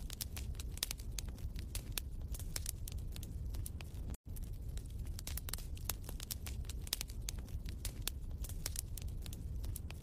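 Wood fire crackling in a fireplace: dense irregular snaps over a low rumble. The sound cuts out for a split second about four seconds in.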